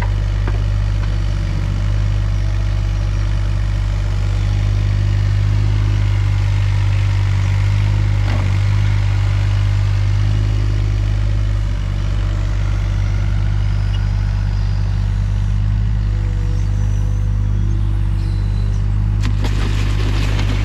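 Takeuchi TB216 mini excavator's diesel engine running steadily, with a few sharp clanks near the end.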